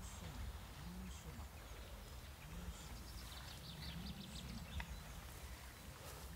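Wind buffeting the microphone outdoors, with a quick run of faint, high clicks about three seconds in.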